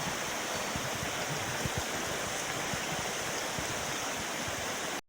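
Mountain stream water rushing steadily; the sound cuts off abruptly near the end.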